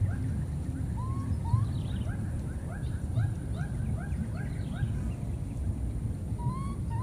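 A run of short, high, repeated animal calls, about three a second in the middle, with a few single rising notes before and after, over a steady low rumble.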